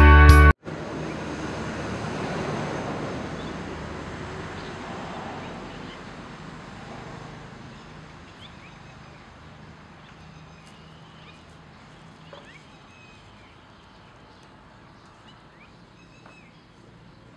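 Rock music cuts off abruptly at the very start, then outdoor ambience: a rushing wind-like noise that fades away over several seconds, with faint short high chirps, likely birds, scattered through the later part.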